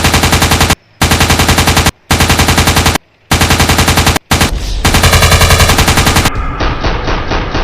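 Machine-gun sound effect firing in bursts of about a second each, around ten shots a second, separated by short gaps. From about six and a half seconds it turns into a continuous run of shots with a different, duller sound.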